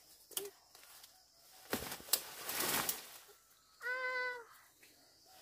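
Leaves and brush rustling as someone pushes through dense undergrowth, loudest in the middle, then about four seconds in a single short, steady-pitched animal call.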